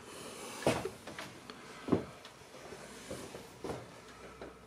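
Quiet small-room tone with a few faint knocks, about three, spaced a second or more apart.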